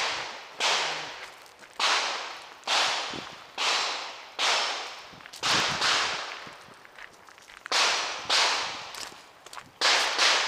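A string of gunshots from a nearby shooting stage, about one a second at uneven spacing, each a sharp crack trailing off in an echo.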